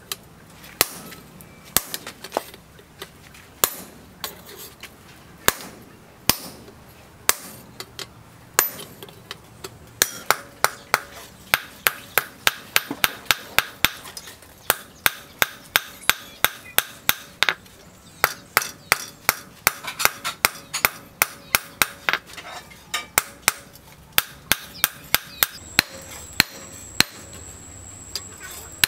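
Hand hammer striking a steel knife blade held in tongs on a small anvil, each blow with a short metallic ring. The blows come singly about a second apart at first, then about a third of the way in they speed up to a quick run of two to three a second.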